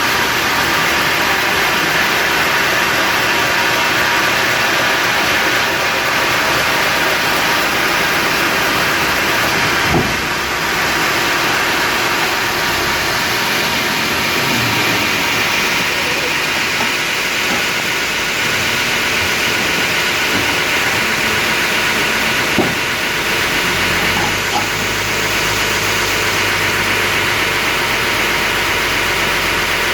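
Sawmill machinery running steadily with a dense mechanical noise, with a sharp knock about ten seconds in and another a little before the end.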